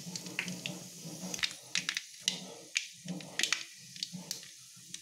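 Hot oil in a cooking pan crackling, with irregular sharp pops and spits over a low steady hum.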